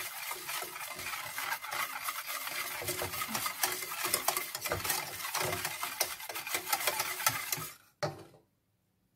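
Wire whisk stirring hot chocolate milk in a stainless steel saucepan, scraping and clicking fast against the pot as the mixture thickens over the gas flame. The stirring stops about eight seconds in.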